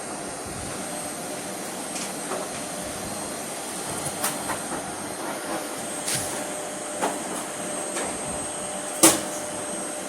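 Air conditioner running with a steady rushing hum, a few light clicks and knocks over it, the sharpest about nine seconds in.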